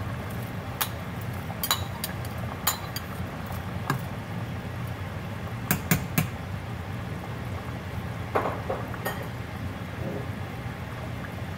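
A metal slotted spoon clicks and knocks against a ceramic bowl and a stainless-steel pot rim as green peas are scooped into the pot, about eight sharp, irregular knocks. Under them runs the steady low bubbling of the simmering stew.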